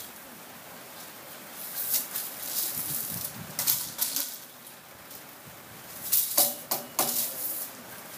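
Plastic hula hoop rattling in short bursts as it is swung and drops onto the concrete, with a cluster of rattles a little over halfway through.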